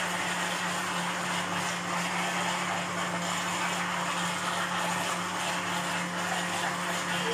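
Electric countertop blender running steadily at one speed, whirring through a jar full of liquid baghrir batter.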